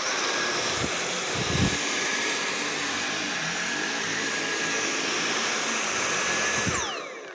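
Dyson V8 Animal Extra cordless stick vacuum cleaner switched on and running on carpet at maximum suction, a steady rush of air with a high whine. Near the end it is switched off and the motor winds down in a falling whine.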